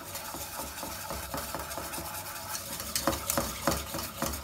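Wire whisk beaten fast through thickening custard in a metal saucepan, its wires clicking and scraping against the pot in quick repeated strokes that grow louder near the end.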